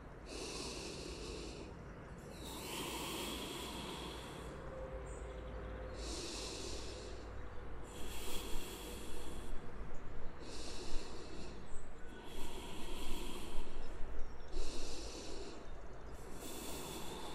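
A woman's slow, deep breathing close to the microphone, about four to five in-and-out breaths each lasting a few seconds, as she recovers from exertion while resting in child's pose.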